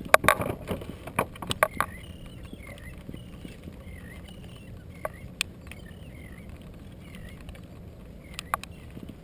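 Sharp clicks and knocks from handling a landed redfish, the net and the tackle in a plastic kayak while working the hook out of the fish's mouth. A quick cluster comes in the first two seconds and single clicks follow a few times later, over a steady low wash of wind and water.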